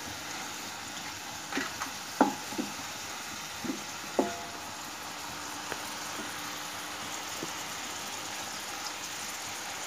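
Sliced onions frying in ghee in a metal karahi with a steady sizzle, still pale and not yet browned. A wooden spoon stirs them, knocking against the pan about five times in the first half.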